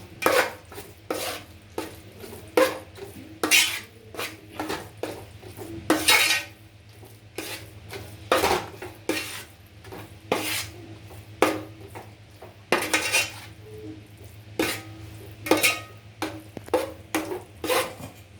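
A spoon stirring thick jackfruit payasam, just mixed with cooked sago, in a pot, knocking and scraping against the pot's sides about once a second at an uneven pace.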